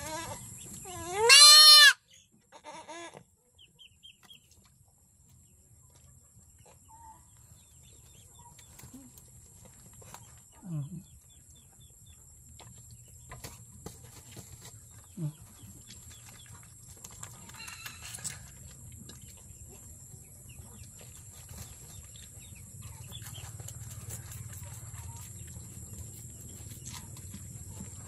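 Young goat bleating once, loud, about a second in, its call rising and then falling in pitch, followed by a long quiet stretch with only a few faint short sounds.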